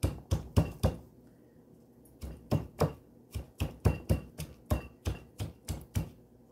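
Pestle pounding raw green string beans in a small mortar: sharp, steady knocks about three a second, with a pause of just over a second about a second in.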